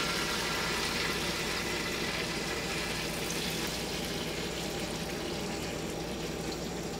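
Rendered beef fat and juices pouring in a thin stream from a tipped air-fryer-style cooking basket onto a steak. A steady trickle that slowly grows quieter.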